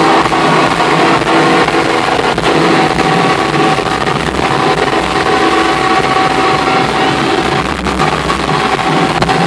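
Loud live rock band playing, heard through a phone's microphone from within the crowd: a dense, continuous wall of sound with long held notes.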